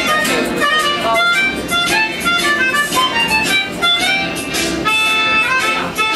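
Lively instrumental music led by a reedy wind instrument playing quick runs of notes.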